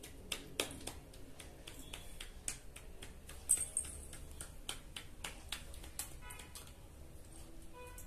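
A series of short, sharp clicks at irregular intervals, about a dozen or more, with a brief high hiss about three and a half seconds in.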